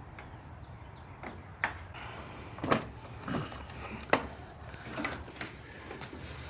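A handful of sharp knocks and clicks at irregular intervals, from the handlebars and fairing parts of a bagger motorcycle being handled and adjusted.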